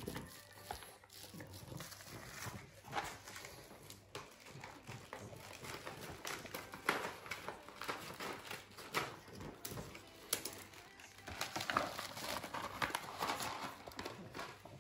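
Plastic packaging crinkling and rustling in irregular bursts as a dog-food pouch is handled and opened, with a pug sniffing and eating at food lying on the plastic wrap.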